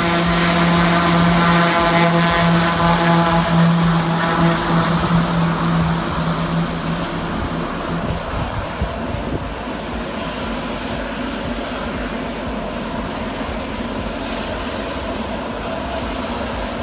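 Small high-wing propeller plane at take-off power rolling down the runway: a steady propeller drone with a strong low hum fades over the first several seconds, leaving an even rushing engine and propeller noise as the plane draws away.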